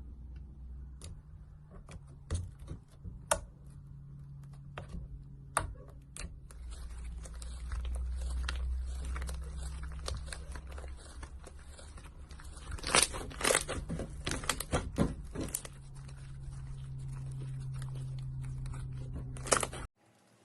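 Hands squeezing and poking slime: a run of sharp pops and crackles, thickening into a louder cluster of pops about two-thirds of the way through, then cutting off abruptly just before the end.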